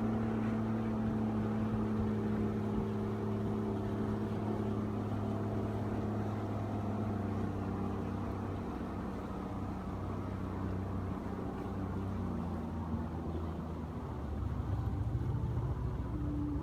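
Tugboat engine running steadily, heard on board, with a low even hum. About halfway through some of its tones fade, and near the end a louder low rumble rises.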